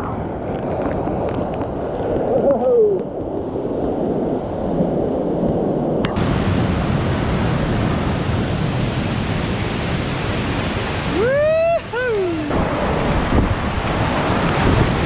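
Heavy rushing of a river in flood, whitewater pouring through rapids and over falls, with wind buffeting the microphone. About eleven seconds in, a person gives a couple of brief whooping shouts that rise and fall.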